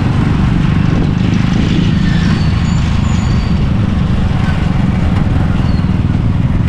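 Steady low rumble of a moving road vehicle, engine, road and wind noise running evenly.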